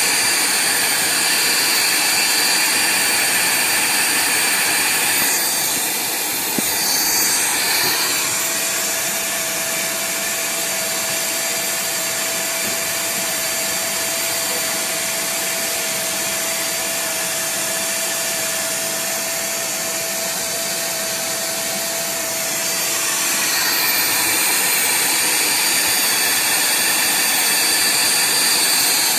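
AVC 212 vacuum cleaner running with a steady, high whine. About six to eight seconds in, its sound changes: it becomes a little quieter, the high whine fades and a steady lower hum comes in. About 23 seconds in, it goes back to the louder, higher whine.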